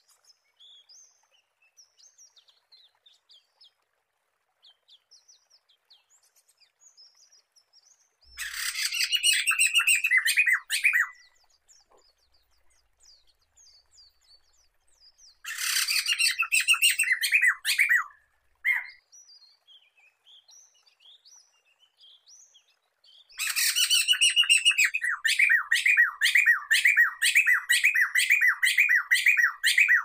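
Poksay mantel laughingthrush singing: three loud bursts of fast, chattering repeated notes, each a few seconds long, the last and longest near the end, with faint scattered chirps between them.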